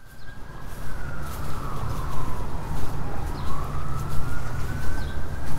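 Emergency vehicle siren in a slow wail, its pitch sliding down and then back up over about five seconds, over a steady low rumble.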